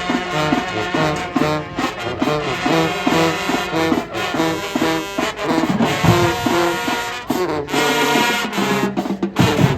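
High school marching band playing: brass section in short punchy rhythmic notes over marching percussion.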